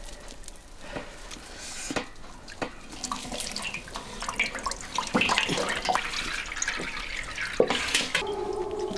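Milky water running and dripping out of a cloth bag of wet rice paste as it is lifted and squeezed over a metal basin, with light knocks from the bag and basin being handled. The running water picks up from about three seconds in.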